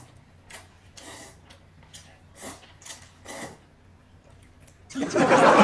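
Soft, irregular eating noises, chewing and small rustles, every half second or so. About five seconds in comes a much louder burst of rustling noise lasting a second or two.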